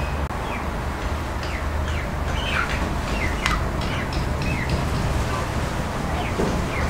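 Small birds chirping outdoors: many short, falling chirps scattered throughout, over a steady low background rumble.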